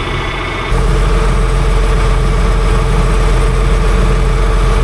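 Tractor engine running steadily, stepping up abruptly to a louder, steady level with a held drone less than a second in.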